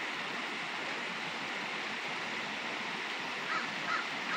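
Creek water rushing steadily, a constant even hiss of flowing water. Three short faint calls sound near the end.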